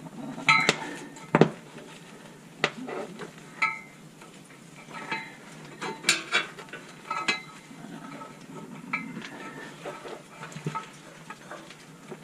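Steel parking-brake cable ends and fittings clinking and rattling as they are handled and hooked together. There is an irregular string of sharp metallic clinks, several ringing briefly.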